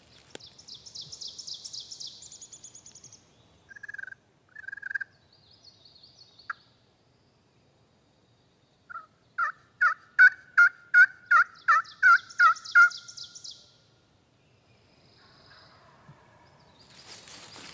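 A run of about a dozen loud turkey yelps, evenly spaced at about three a second, midway through, with two short yelp-like notes a few seconds before. A songbird's fast, high trill sounds near the start and again over the yelps.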